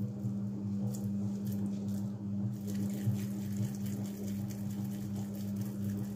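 Wet squishing and patting of minced beef and pork being rolled into meatballs between the hands, with many small sticky clicks, over a loud steady low hum.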